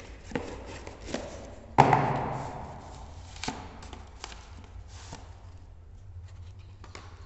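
Cardboard and paper packaging being handled: scattered taps and clicks, with one louder crackling rustle about two seconds in that fades over a second.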